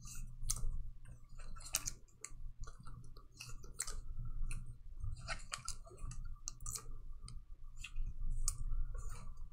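Scattered light clicks and crinkles of trading cards and clear plastic being handled by gloved hands, uneven and irregular, over a faint steady hum.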